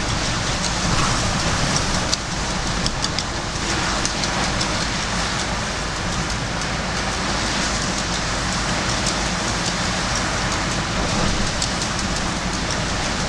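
Gale-force wind rushing and buffeting the microphone, a steady loud noise with a heavy low rumble, with scattered sharp ticks throughout.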